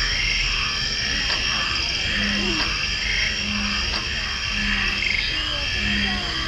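Frogs croaking: short, low calls repeating about once a second, over a steady background hiss with faint voices.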